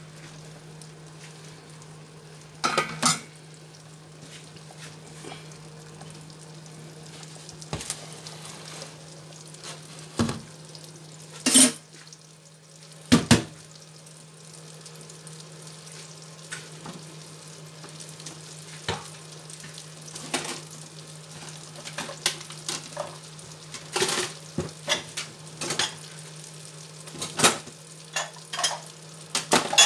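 Butter melting and sizzling softly in a frying pan, over a steady low hum. A few sharp knocks and clinks break in now and then, the two loudest near the middle.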